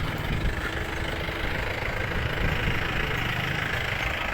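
A motor vehicle's engine running steadily, a low rumble under an even background hiss.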